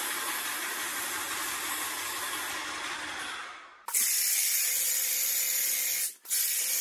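Airless paint spray gun hissing steadily as it atomises paint onto a wall. The hiss breaks off just before the middle and starts again sharper, with a faint steady hum underneath, then dips briefly near the end.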